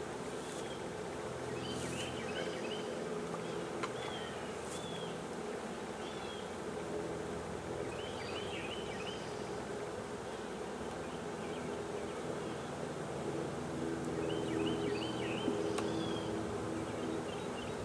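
Honeybee swarm buzzing in a steady dense hum, with short high chirps now and then.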